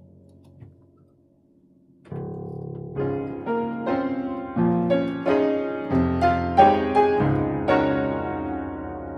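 Background piano music. A soft held chord fades out, and after a short pause a piano piece begins about two seconds in, with struck chords and a melody that climbs higher.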